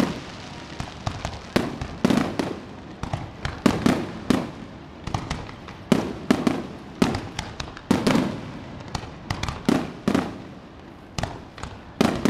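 Aerial firework shells bursting in a rapid, irregular run of bangs, several a second, each followed by a short low rumble.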